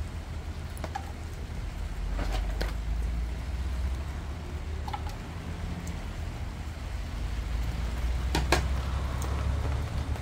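A steady low rumble of outdoor noise with a few sharp clicks and knocks; the loudest knock comes near the end.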